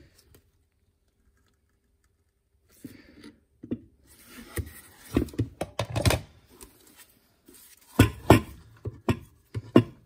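The wooden case of an antique GPO telephone repeater bell being turned over and handled on a wooden bench: after a near-silent start, an irregular series of knocks, clicks and scrapes, with two loud knocks about eight seconds in.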